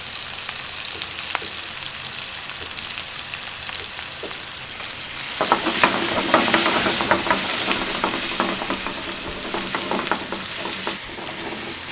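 Food sizzling in a hot frying pan, with a steady hiss. About halfway through it grows louder, and quick clicks and scrapes of a utensil stirring in the pan run almost to the end.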